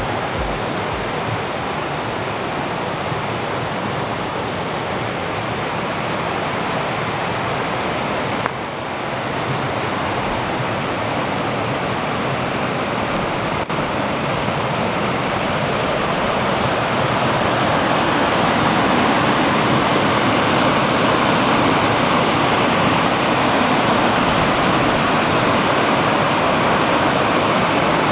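Waterfall cascading over sloping bedrock: a steady rush of falling water, growing louder about two-thirds of the way through.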